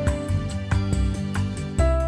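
Background music with a steady beat under held melody notes.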